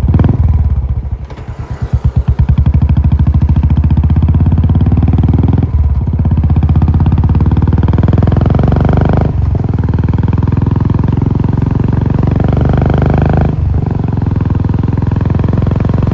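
Single-cylinder Royal Enfield Classic 350 with an aftermarket Cobra exhaust, ridden and pulling hard, each firing stroke thumping out clearly. The engine note climbs steadily and breaks off briefly three times, near 6, 9.5 and 13.5 seconds in, as it changes up through the gears.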